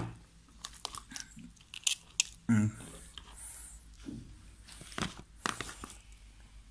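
A knife scraping and cutting raw tulingan (small tuna) on a plastic cutting board: irregular crunchy scrapes and clicks, with a heavier thump about two and a half seconds in.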